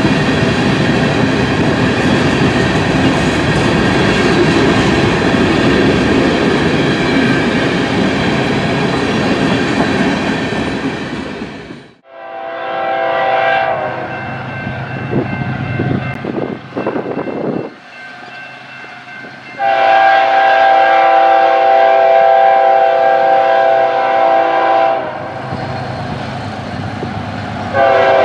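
Covered hopper cars of a passing freight train rumbling and clicking along the rails. After a sudden cut about 12 s in, a diesel locomotive's air horn sounds in several blasts as the train approaches, the longest and loudest about two-thirds of the way through, with another starting near the end.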